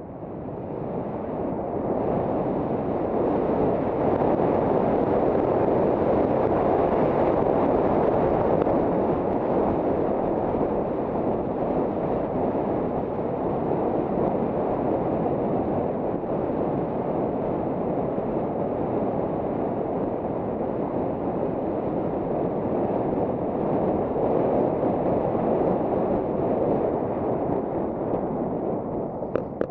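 Steady rush of wind buffeting a helmet-mounted action camera's microphone as the skier runs downhill at speed, swelling over the first couple of seconds as the skier gathers speed.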